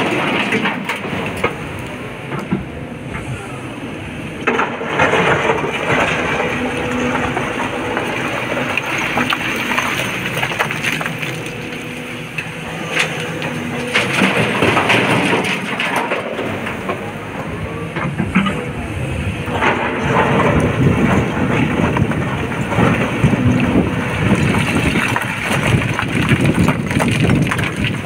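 Sany crawler excavator's diesel engine running steadily while its bucket dumps loads of broken quarry rock into a dump truck's body: long spells of rocks clattering and rumbling into the bed, the loudest in the second half.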